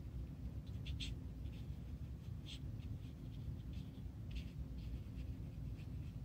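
Watercolour brush dabbing and stroking paint onto wet paper: faint, irregular soft scratches over a steady low hum.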